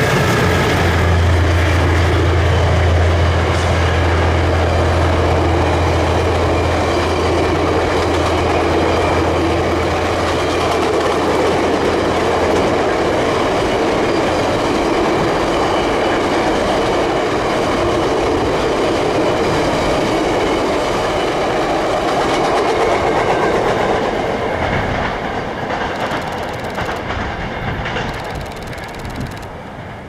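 VIA Rail passenger train passing: the low steady drone of its F40PH diesel locomotives fades out about twelve seconds in, leaving the rumble and clickety-clack of the stainless-steel passenger cars rolling by. It grows fainter over the last several seconds as the train moves away.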